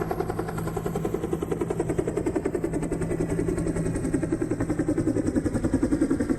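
A machine running with a fast, even pulsing, the chopping beat of an engine or rotor, over a steady low hum that drops out a little past halfway.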